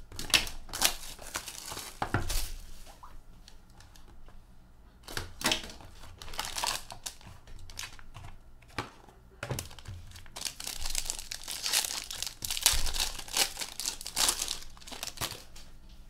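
Plastic wrapping on a sealed box of hockey trading cards being torn open and crumpled by hand, in irregular bursts of crinkling and tearing, with a longer stretch of it in the second half.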